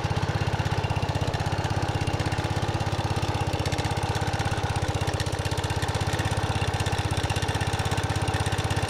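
International Harvester Cub Cadet 123 garden tractor's single-cylinder Kohler engine idling steadily, with a fast, even exhaust beat.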